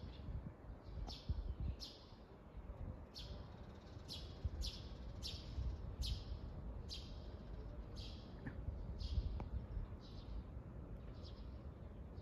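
A small bird chirping over and over in short, high, falling notes, about two a second, fading toward the end, over a low background rumble.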